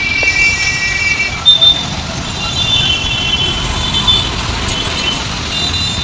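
Busy road traffic of motorcycles, scooters and cars, with vehicle horns honking again and again over a steady engine rumble. One long horn blast comes at the start, followed by shorter toots.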